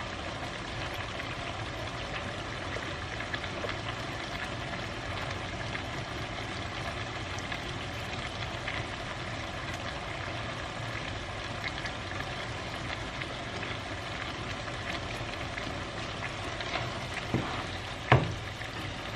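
Food frying in a pan: a steady sizzle with fine crackling throughout. Two sharp knocks come near the end.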